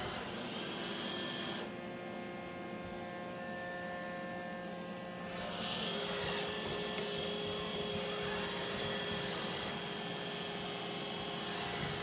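iRobot Roomba i4 robot vacuum running across a hard floor: a steady motor whine of several tones under a hiss of suction. The hiss drops away for a few seconds about two seconds in, then comes back.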